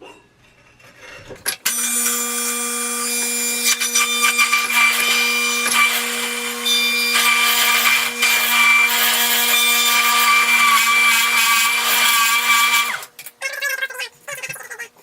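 Electric juicer running as vegetables are fed through it: a steady motor hum under a loud grinding, shredding noise. It starts with a few knocks, runs for about eleven seconds, cuts off near the end, and a light clatter follows.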